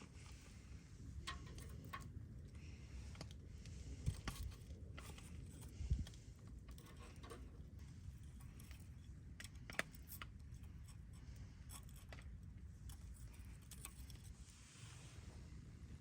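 Scattered light clicks and clinks of small objects being handled, with a couple of soft thumps about four and six seconds in and a sharper click near ten seconds, over a low rumble.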